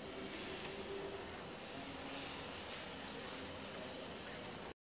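Faint, steady sizzling hiss of dosa batter on a hot non-stick tawa as it is spread in circles with a ladle. It cuts off suddenly near the end.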